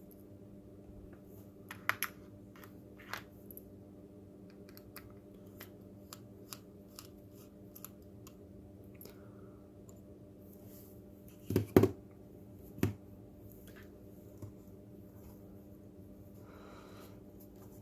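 Small scattered clicks and taps of plastic robot-kit parts and a circuit board being handled, with a louder cluster of clicks about twelve seconds in and one more just after, over a steady low hum.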